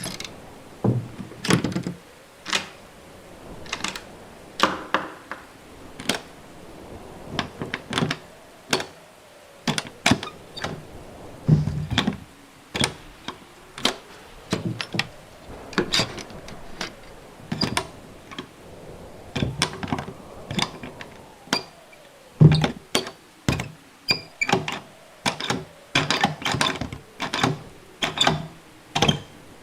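A rapid series of door sounds, one after another: many sharp latch and handle clicks and knocks, with a few heavier door thuds among them.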